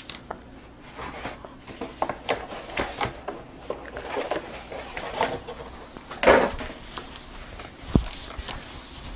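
Keyboard box and its packaging being handled: irregular rubbing, rustling and light knocks, with a louder scrape about six seconds in and a sharp knock near the end.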